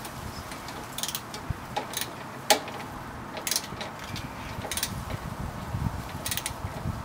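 Socket ratchet clicking in short, irregular runs as a shock bolt is turned, with a sharp metallic click about two and a half seconds in.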